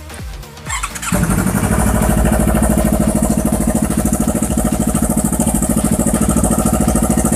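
Yamaha R25's 250 cc parallel-twin engine starting about a second in and then running steadily through a newly fitted aftermarket RED Mufflers racing exhaust.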